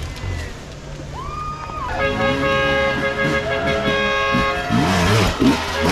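A horn gives one long steady blast of nearly three seconds, starting about two seconds in, while a dirt bike engine revs up and down underneath.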